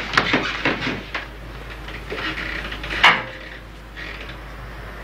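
Light clicks and knocks of handling in a small room, then one loud knock about three seconds in, like a door or cabinet being shut.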